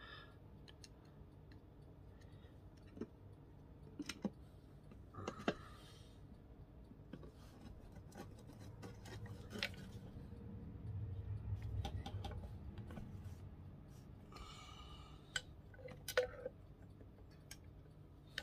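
Scattered light metallic clicks and scrapes as a screwdriver and bolts are worked into the metal housing of an old bench grinder, with a soft low rumble of handling about halfway through.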